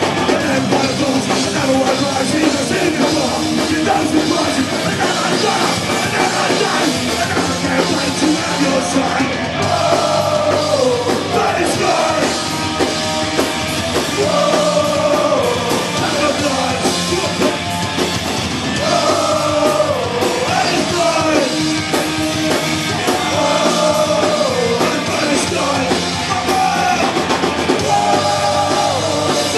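Punk rock band playing live: guitar, bass and drums at full volume, with the singer's shouted, sung vocal over them.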